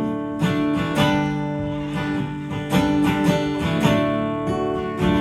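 Acoustic guitar strumming chords, with sharp strokes every second or so and the chords ringing on between them.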